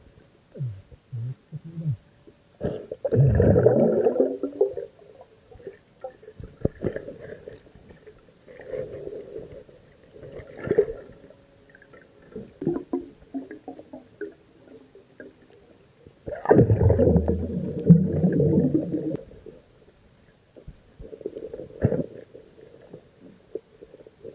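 Muffled underwater gurgling and bubbling picked up by a submerged camera, in irregular bursts, with two louder stretches: one a few seconds in and one about two-thirds of the way through.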